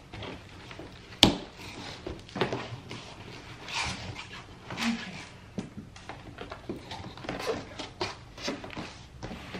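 Cardboard monitor box being cut open with scissors and its flaps pulled open, with scattered rustles and clicks and one sharp snap about a second in.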